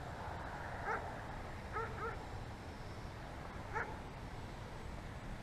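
An animal's short yelping calls, four in all, with a steady wind rumble on the microphone.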